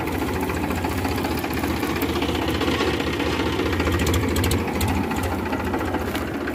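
Powertrac Euro 50 tractor's three-cylinder diesel engine running steadily, with a rapid, even clatter.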